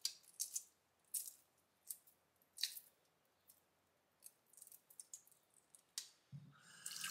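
Shell of a hard-boiled egg crackling faintly as it is peeled off by hand, a few short crisp crackles a second or so apart. Near the end a tap starts running.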